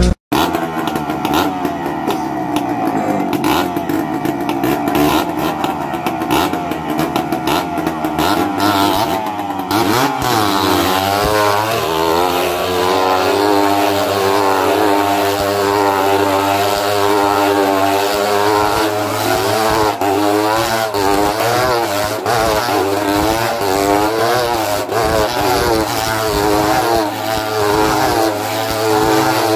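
Motorcycle engines running inside a steel-mesh globe of death. The engine pitch is fairly steady at first, then from about ten seconds in swings up and down in a regular wave as the riders loop round the sphere.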